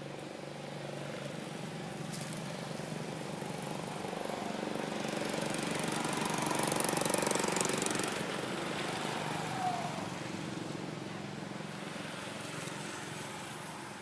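A motor vehicle engine running, swelling to its loudest around the middle and then fading.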